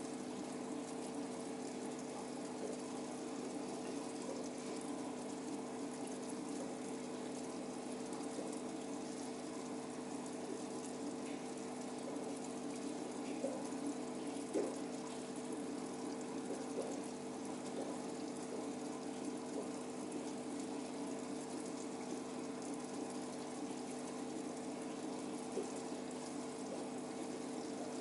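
Aquarium pump humming steadily over a constant rush of moving water, with a few small pops.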